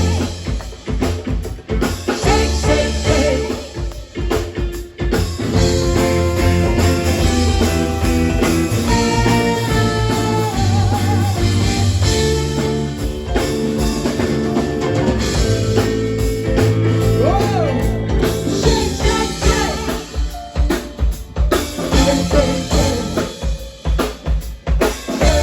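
Live band playing an instrumental passage: a drum kit with kick and snare keeping the beat under a bass line and sustained, sometimes bending melody notes.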